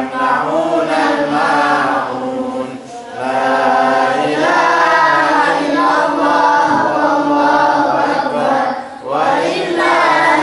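A boy's voice reciting the Qur'an in a melodic chant through a microphone, in long held phrases with short breaths between them, a little before 3 s and about 9 s in.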